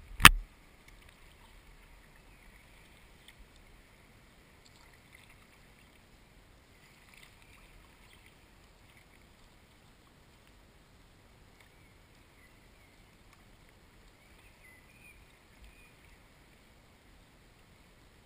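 A sharp knock on the action camera's housing just after the start, from a hand at the lens, then faint kayak paddle strokes: the blade dipping into calm river water with soft splashes and drips every few seconds.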